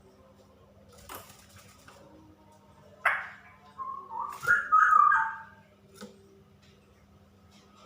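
Female straw-headed bulbul singing: a brief sharp note about three seconds in, then a loud bubbling, whistled warble in quick stepped notes about a second later.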